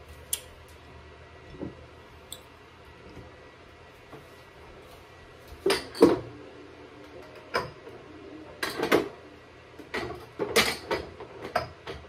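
Bottles and jars being set down and shifted on a refrigerator's door shelves: scattered knocks and clinks, the loudest pair about six seconds in and a quick run of them near the end.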